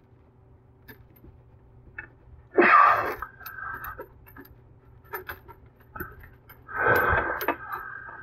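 A man breathing out hard twice with effort while he tightens the faucet's mounting nut with a basin wrench turned by a screwdriver, with small metal clicks and taps from the tools in between.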